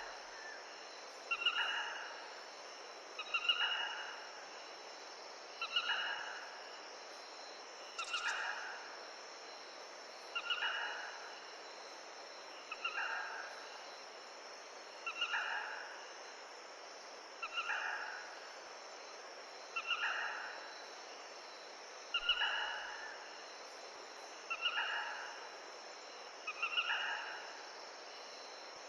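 A bird gives the same short call over and over, about every two seconds, roughly a dozen times, each call starting sharply and fading. Under it runs the steady rush of a forest stream.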